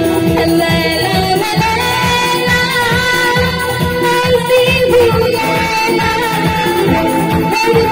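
A woman singing a song into a microphone, amplified through stage speakers, over a live band of bass guitar and keyboards with a steady beat.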